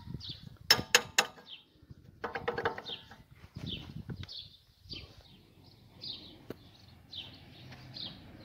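Three sharp metallic clinks about a second in from hands working on a ZIL truck's wheel hub, followed by rougher handling and scraping noise. A small bird chirps over and over throughout.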